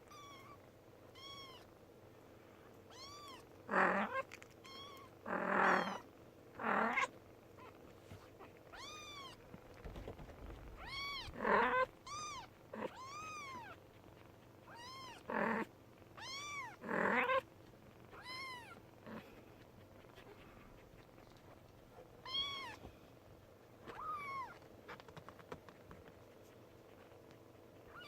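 Young kitten, about three weeks old, mewing over and over in short, high, thin calls that each rise and fall in pitch. A few louder, noisy scuffs come between the calls.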